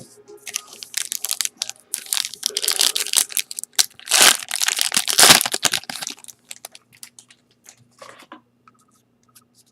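A trading-card pack wrapper being torn open and crinkled, a dense crackling that is loudest in the middle, followed by a few light clicks and rustles of handling.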